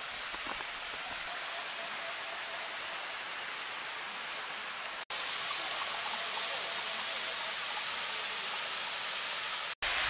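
Steady rush of water from a small waterfall pouring into a pool. The sound breaks off for an instant twice, about halfway and near the end, and is a little louder after the first break.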